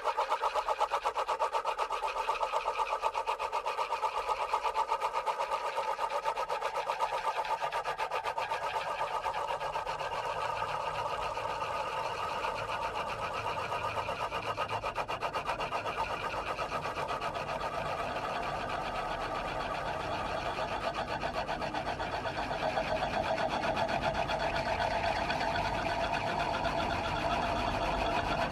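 Droning, fast and evenly pulsing texture from the radio play's musical score, its pitch bands drifting slowly. A low rumble fills in from about halfway, and it grows a little louder near the end.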